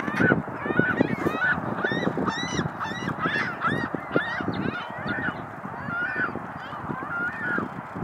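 Geese honking, their calls following one another about two or three times a second and thinning out toward the end, over a low rough background noise.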